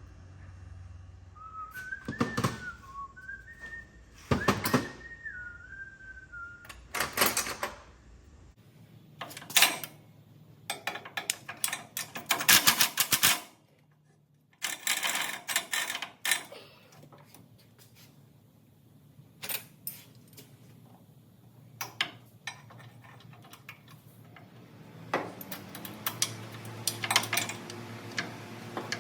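A person whistles a short tune for several seconds near the start. Scattered knocks, clicks and clanks of tools and parts being handled run through the rest.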